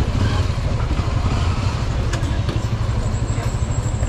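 Motorcycle engine idling close by, a steady low rumble that pulses rapidly, with a few light clicks about two seconds in.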